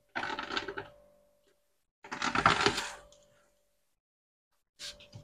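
Worn rubber door gasket of a Haier refrigerator being pulled out of its groove in the door: two crackling, tearing pulls of about a second each, then a short sharp click near the end.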